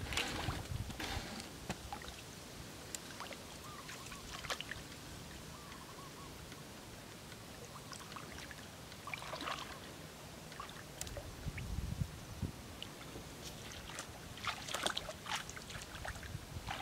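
Footsteps wading through shallow water in a flooded rice paddy: legs sloshing and splashing through water and mud among the rice plants, in uneven clusters of strides.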